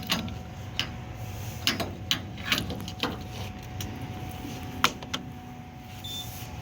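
Irregular clicks and knocks from handling the fuel cap and pump nozzle while refuelling a pickup, over a steady low hum.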